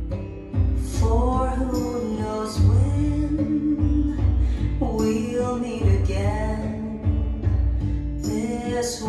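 A song played back through an 811A push-pull tube amplifier and floor-standing speakers: a singer's voice in phrases over a steady bass line.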